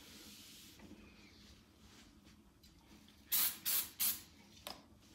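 Aerosol can of wax and grease remover sprayed in three short hissing bursts a little over three seconds in, then a brief fainter one, after a cloth rubs faintly over the primed metal strut brace.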